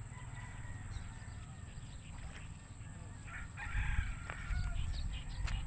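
A rooster crowing once, about three seconds in, over a low rumble that grows louder with it; a few faint sharp clicks.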